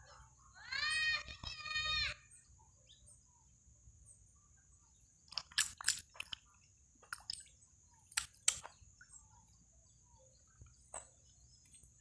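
An animal's call, a quick run of five or six pitched notes that each rise and fall, in the first two seconds. From about five seconds in come a few sharp clicks and taps, the loudest sounds here.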